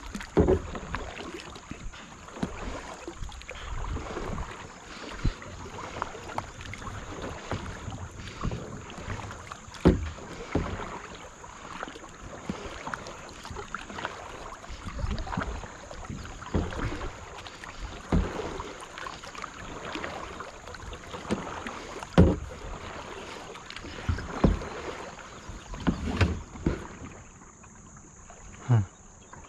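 Kayak being paddled through moving river water: paddle strokes splashing, with sharp knocks every second or two.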